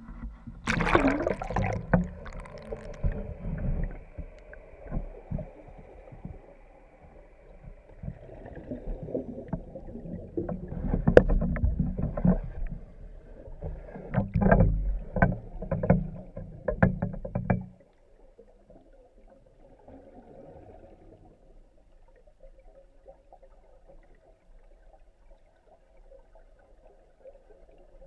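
Muffled churning water with irregular knocks and clicks, as heard during underwater work in a swimming pool. It cuts off abruptly about two-thirds of the way through, leaving only a faint low murmur.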